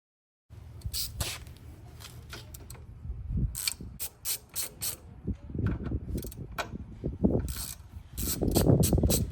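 Hand-tool work on a car: a string of irregular metal clicks and ratcheting clatter, with heavier, denser stretches near the middle and toward the end.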